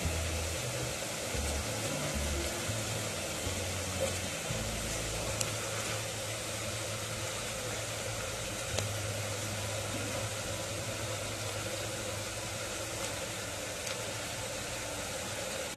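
Chopped tomatoes and onions frying in oil in a pan: a steady sizzling hiss with a low rumble underneath and a few small pops.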